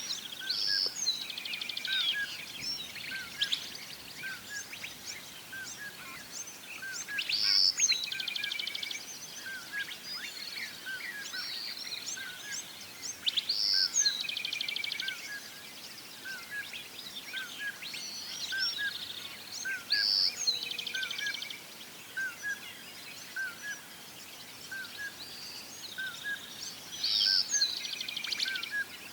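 Birds singing: a loud song phrase ending in a rapid trill repeats about every six seconds, over a steady series of short, evenly spaced chirps, one or two a second.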